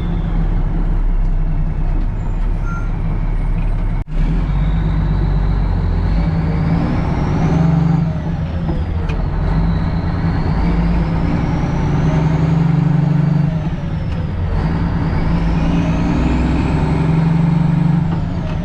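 Heavy truck's diesel engine pulling away and working up through the gears of a manual transmission: the engine speed climbs, then falls back at each shift, three times.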